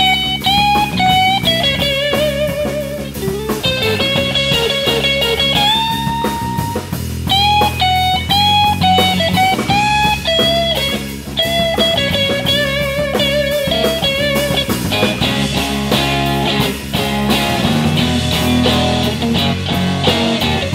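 Blues trio playing live: an electric guitar solo of held, bent notes with vibrato over bass guitar and drum kit.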